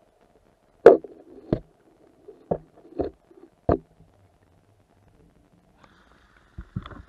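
Muffled knocks of a camera being handled underwater in a stream. There are five sharp knocks in the first four seconds, then a few faint taps near the end.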